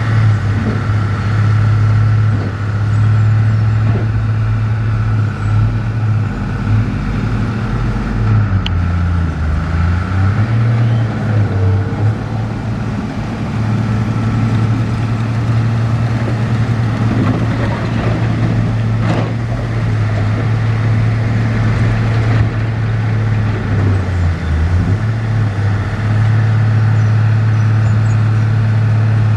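Heavy diesel engine of earthmoving machinery running steadily under load, its pitch dropping briefly twice, about a third of the way in and again near the end.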